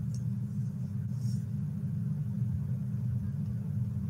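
Steady low hum of room or recording equipment noise, with a faint brief hiss about a second in.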